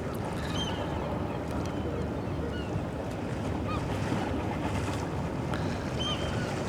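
Steady low rumble of wind on the microphone and river water, with the sound of the passing cargo ship. A few short high chirps sound about half a second in, near the middle and near the end.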